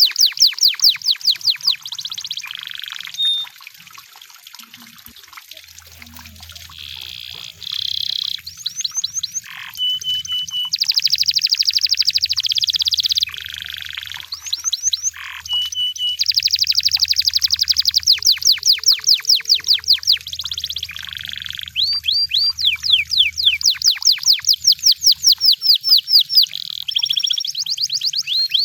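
Canary singing a long, varied song: fast trills of rapidly repeated high sweeping notes alternate with dense buzzing rolls. Twice, about ten seconds in and again near sixteen seconds, it holds a short, clear whistle.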